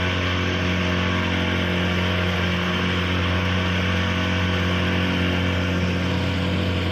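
A tour boat's engine running steadily under way, an even low hum with no change in speed.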